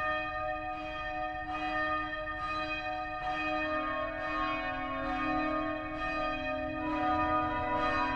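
Church bells ringing, struck about once a second, with bells of different pitches whose tones overlap and ring on.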